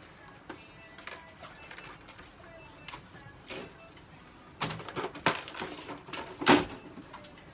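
A cat's fur being brushed with a small handheld brush: scattered short rustling strokes, growing busier in the second half, with a sharper knock about six and a half seconds in.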